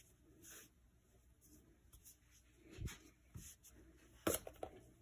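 Faint rubbing and rustling of a woven fabric strip being pressed and folded flat by hand, with a soft thump near three seconds and a sharper tap a little after four seconds.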